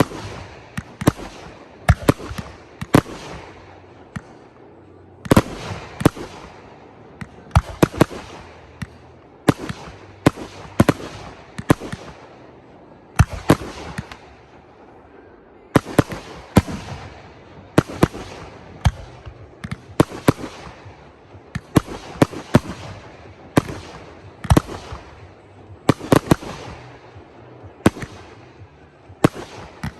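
Aerial fireworks going off in quick succession: sharp bangs every second or so, often in clusters, each trailed by a fading crackle.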